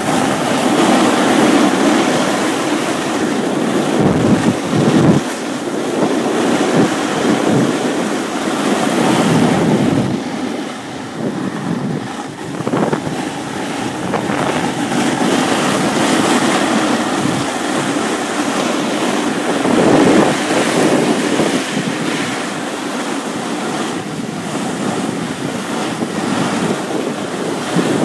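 Snowboard sliding and scraping over groomed snow, a continuous rushing hiss that swells and eases, mixed with wind buffeting the microphone.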